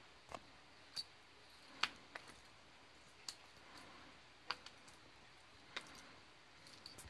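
About a dozen sharp clicks and light taps at irregular intervals against a quiet background, the loudest a little under two seconds in.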